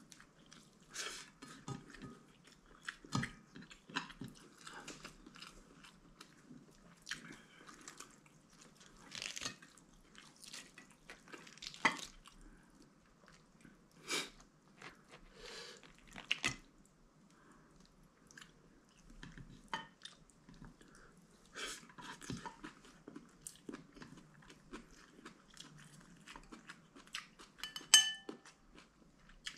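A person eating a meal by hand: chewing and mouth sounds in short bursts every second or two, with a sharp clink of tableware near the end.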